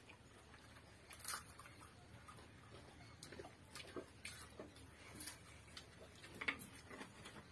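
Faint eating sounds: scattered soft clicks and smacks from people eating rice by hand off banana leaves, every half second to a second.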